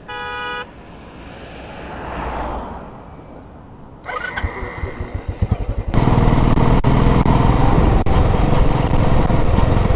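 Royal Enfield Bullet's single-cylinder engine starting and running at low revs with an uneven thump about four seconds in, then running loud under way from about six seconds, with wind rush over the microphone.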